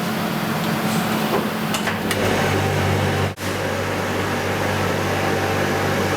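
Workshop machinery running: a steady hiss with a low hum that gets stronger about two seconds in, cut by a brief dropout a little after three seconds.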